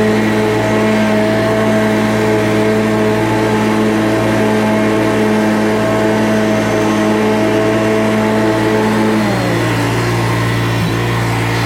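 An engine running steadily at high speed, its pitch dropping about nine seconds in as it throttles down, then holding at a lower speed.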